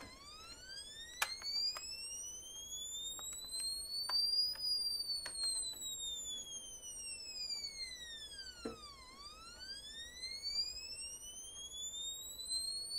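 Sine tone through a small speaker driven by a two-stage 2N3904 transistor amplifier, swept up and down by a function generator. The pitch rises steadily for about four and a half seconds, falls back for about four, then rises again, with a few faint clicks along the way.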